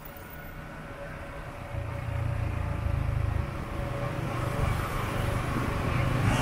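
Motorbike engine running during a ride along a busy city street, with passing cars and scooters. The low engine rumble gets louder about two seconds in.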